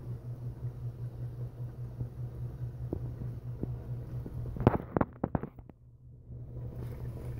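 Low steady rumble, broken about two-thirds through by a quick run of sharp knocks and clicks from the phone being handled. The rumble then drops away for about a second before returning.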